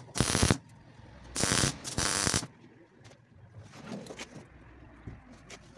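Electric arc welding on a truck-cab steel crossmember, in short tack bursts: four spits of crackling arc in the first two and a half seconds, each under a second long. Then quieter, with only faint handling sounds.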